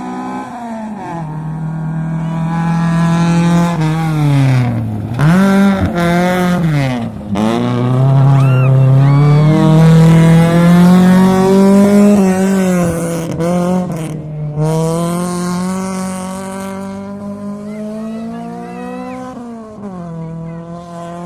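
Rally car engine revving hard as it approaches, with two sharp drops in pitch about five and seven seconds in as the driver lifts off and shifts. It climbs again, is loudest in the middle, and falls in pitch and fades as the car passes and drives away.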